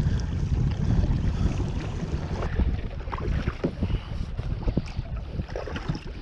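Kayak being paddled, with wind buffeting the microphone in a choppy low rumble and scattered small paddle splashes and knocks through the second half.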